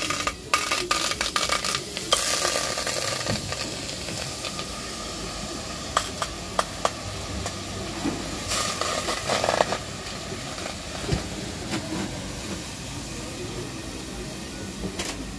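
Handfuls of wet leafy greens being dropped and pushed into a metal saucepan: wet rustling and dripping with a few sharp clicks against the pot, busiest in the first few seconds and again about nine seconds in, over a steady hiss.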